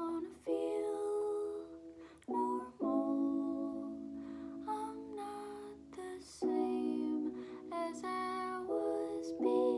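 A woman singing a slow song over a strummed guitar, chords struck about five times and left to ring between the sung lines.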